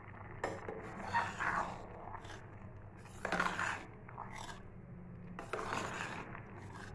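Metal ladle stirring and scraping thick sweet rice-and-lentil chakkara pongal in a steel pressure cooker, mixing in ghee, in a few separate strokes over a low steady hum.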